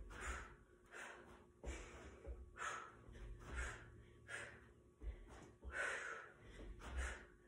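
A woman panting hard mid-workout, sharp breaths in and out about once a second, with dull low thuds of bare feet landing on an upholstered ottoman and the floor during box jumps.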